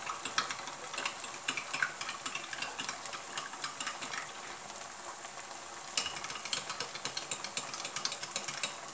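A spoon stirring in a small glass bowl, mixing cornflour and masala with water into a slurry, with many light clicks against the glass that come thicker from about six seconds in. Under it, the soft sizzle of sauce cooking in a wok.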